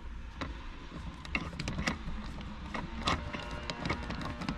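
Hand screwdriver working a small screw through a plastic armrest shell into its base plate: irregular small clicks and scrapes of the bit, screw and plastic parts.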